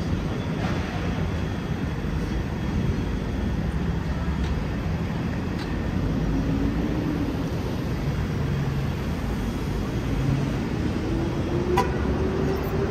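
Steady low rumble of city street traffic, with a vehicle's engine note rising twice and a single sharp click near the end.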